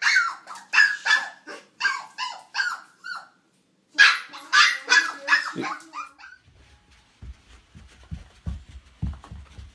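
Small puppy barking repeatedly, sharp high barks about two to three a second, with a short break about three seconds in; the barking stops about six seconds in, leaving only faint low thuds.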